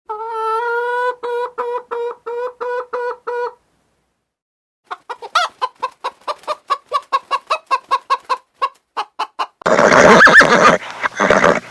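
Chickens clucking: first a run of short, evenly repeated pitched calls, then a quick train of short clucks at about four or five a second, and a louder, harsher call in the last two seconds.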